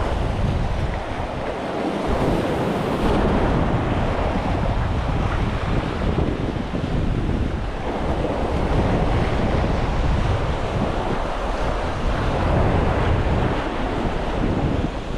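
Sea waves washing and splashing against the rocks and concrete blocks of a breakwater, with wind buffeting the microphone.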